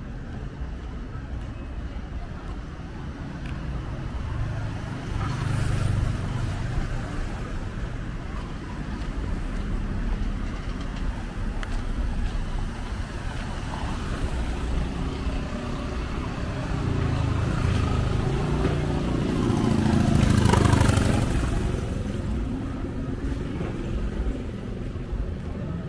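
Street traffic: passing vehicles over a steady low rumble, swelling briefly about six seconds in and most strongly about twenty seconds in as a vehicle passes close.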